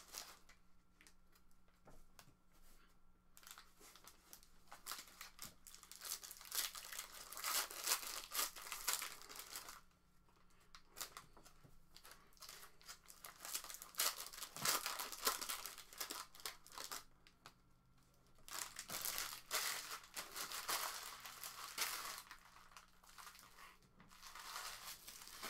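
Plastic wrapping of a sealed box of Prizm football cards and its packs being torn open and crinkled by hand, in irregular bursts with a couple of short pauses.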